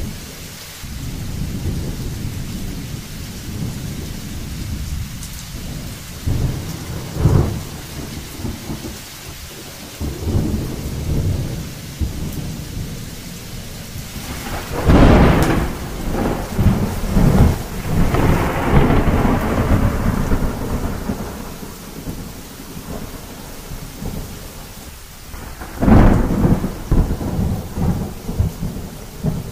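Thunderstorm: steady rain with thunder rumbling throughout. Sharp thunder cracks come about a quarter of the way in, at the middle and again near the end. The one at the middle is the loudest, and each rolls on into a rumble.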